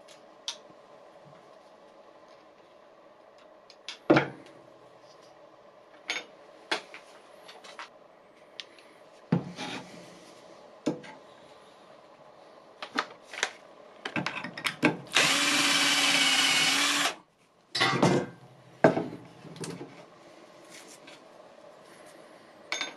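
A power drill runs steadily for about two seconds, boring a hole through a thin metal strip clamped to the bench. Around it are scattered clicks and knocks of tools and metal being handled.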